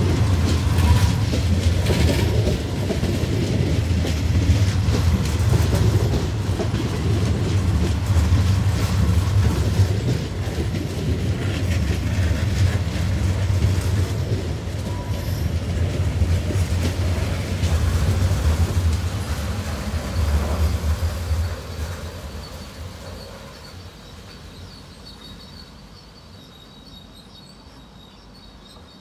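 Venice Simplon-Orient-Express passenger coaches rolling past, a low rumble with wheels clattering over the rail joints. The sound fades away about three-quarters of the way through as the train pulls off.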